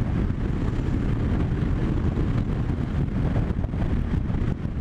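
Steady wind rush on a helmet-mounted microphone while riding a Yamaha Tracer 700 at cruising speed, with the bike's parallel-twin engine and road noise underneath.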